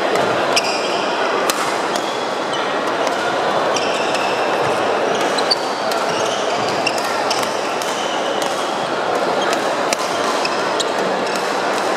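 Badminton rally: sharp racket strikes on the shuttlecock and short high squeaks of shoes on the wooden court, over steady background chatter in a large, echoing sports hall.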